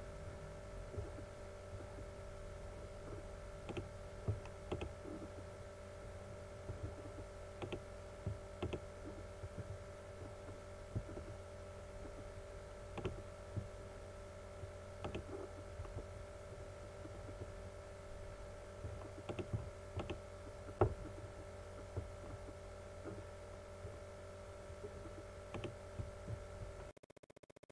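Steady electrical hum made of several fixed tones, with irregular faint clicks of a computer mouse scattered through it. The hum cuts off suddenly near the end.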